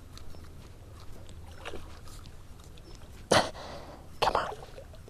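Two loud splashes about a second apart: a hooked carp thrashing at the water's surface.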